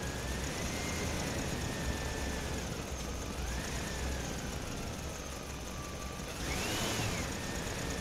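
Toy RC truck's small electric motor whining as it drives, the pitch drifting slowly up and down and rising sharply then falling back near the end, over a steady hiss.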